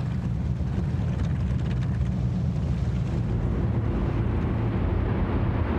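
Martin Mars flying boat's four radial piston engines droning steadily as the aircraft runs across the water, with a slightly higher engine tone joining about halfway through.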